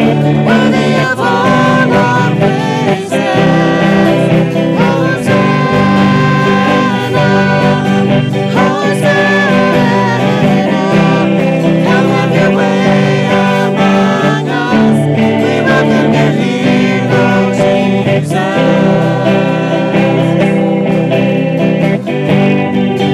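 A church praise band plays and sings a worship song: voices carry the melody over strummed acoustic and electric guitars and a drum kit.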